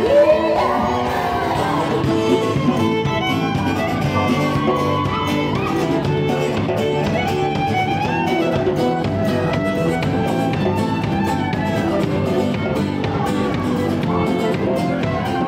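Live folk band playing an instrumental passage, with a fiddle carrying the melody over the band.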